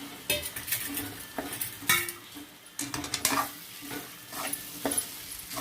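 A spatula stirring boiled rice into fried mint paste in a hot pan: irregular scrapes and clinks against the pan, several a second, over a light sizzle.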